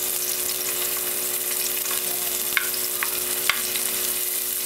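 Chopped onion sautéing in a nonstick frying pan with a steady sizzle, stirred with a plastic spatula; a few sharp clicks come in the second half as the spatula knocks the pan.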